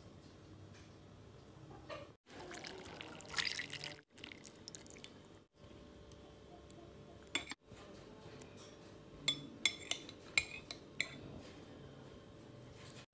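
A short splash of liquid, then a quick run of light, sharp clinks of a utensil against a ceramic soup bowl.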